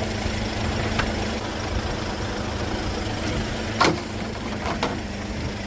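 Motor vehicle engine idling with a steady low rumble and hum, and a few sharp knocks: one about a second in, a louder one just before the four-second mark, and another near the five-second mark.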